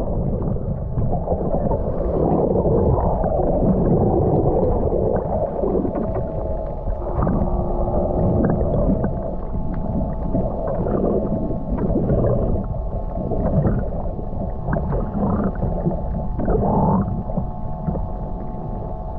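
Muffled underwater sound picked up by a GoPro in its waterproof housing: low rushing and gurgling of water around the camera, with a faint steady hum underneath.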